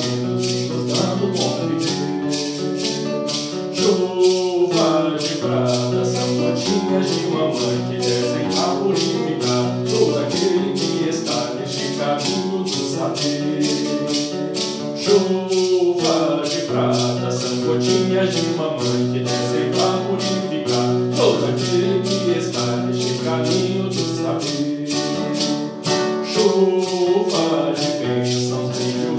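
A devotional hymn sung to acoustic guitar, with a shaker keeping a steady beat of about two to three strokes a second.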